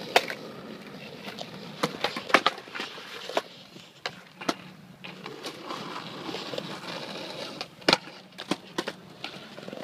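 Skateboards rolling over concrete, the wheels giving a steady rough rumble, broken by a dozen or so sharp clacks of boards hitting the ground, the loudest near the start, around two and a half seconds in, and about eight seconds in.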